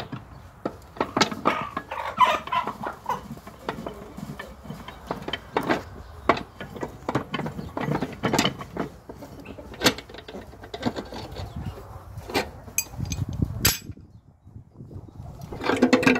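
Irregular metal clicks, knocks and scrapes from a homemade steel screw press as its threaded rod is spun loose and the pressing plate lifted, with hens clucking. The sounds cut off abruptly near the end, and a louder burst follows.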